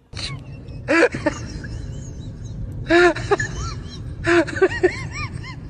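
Small dog giving short, high-pitched whining yelps in three bursts, each cry rising and falling in pitch, over a steady low hum.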